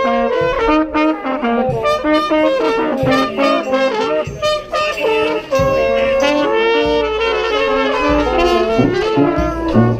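Street brass band of trumpets, trombones and saxophones playing together, many horns sounding at once in held and stepping notes.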